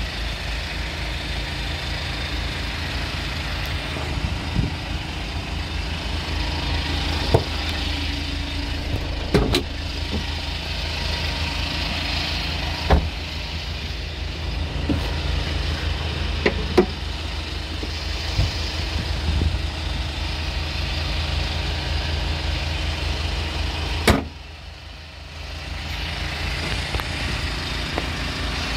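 Kia Bongo III light truck's diesel engine idling with a steady, evenly pulsing low rumble. A few short knocks are scattered through it, the loudest about 24 seconds in, after which the sound briefly drops.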